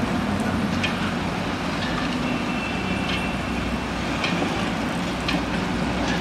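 Liebherr crawler excavator's diesel engine running steadily while digging, with scattered short knocks from the bucket working broken asphalt.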